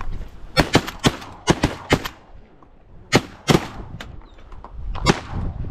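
A volley of shotgun fire from several duck hunters shooting at passing ducks: about nine shots, six in quick succession in the first two seconds, then three more spaced out.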